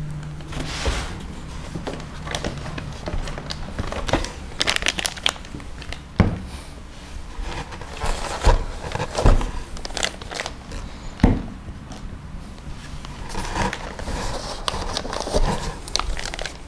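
Plastic packaging crinkling and rustling, with irregular light knocks, as bagged parts are lifted out of a cardboard box and set down on a table.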